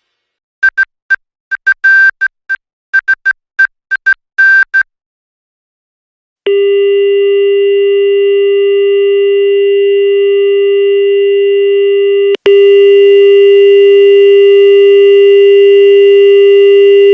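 Simulated Emergency Alert System signal: a rapid series of short electronic data-tone bursts for about four seconds, then after a two-second gap a loud steady buzzing tone. About six seconds after it starts, the tone breaks for an instant and comes back louder.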